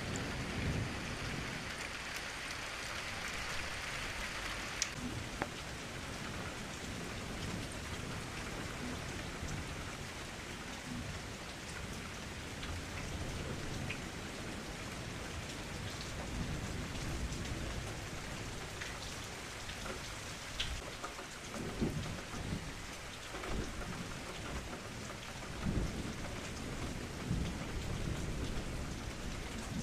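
Steady rain hissing, with low rolls of thunder at the start and several more rumbles in the last third.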